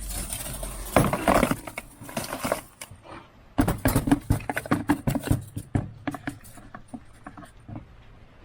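Metal key blanks clinking and scraping in wet abrasive sand as they are handled out of a tumbler barrel: a busy run of quick clicks and gritty rustling, pausing briefly about three seconds in, then thinning out near the end.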